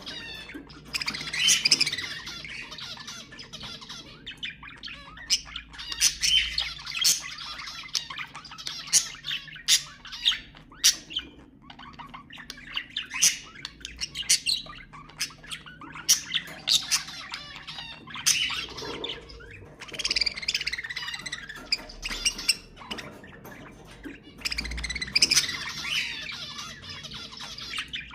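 Budgerigars chattering: busy warbling with frequent sharp chirps and squawks.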